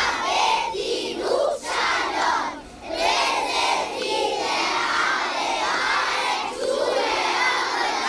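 A large group of young children chanting loudly together in chorus, half shouting and half singing.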